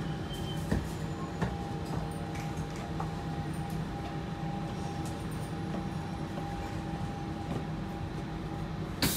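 Siemens C651 metro train running at speed, heard from inside the carriage: a steady rumble with a faint steady whine and a couple of light clicks. A sudden loud rush of hiss sets in right at the end.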